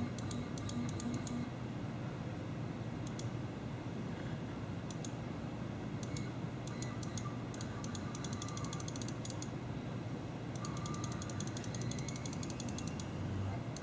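Clusters of computer-mouse clicks over a steady low hum, with a few faint, short whines from the delta 3D printer's Z-axis stepper motor jogging the carriage; it is the only axis responding, because the X and Y stepper drivers are not properly connected to the board.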